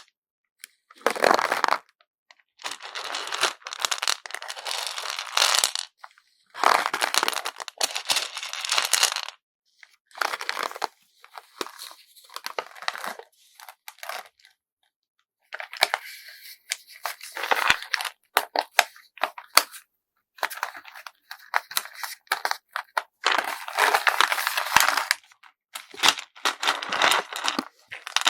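Packaging material crinkling and rustling as it is handled and folded. It comes in bursts of a second or more with short silent gaps between them, and a few sharp clicks.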